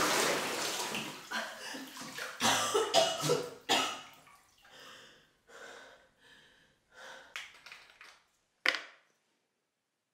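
Bathwater sloshing and splashing around a woman in a tub, followed by her heavy, gasping breaths, which grow fainter with one last sharp breath near the end.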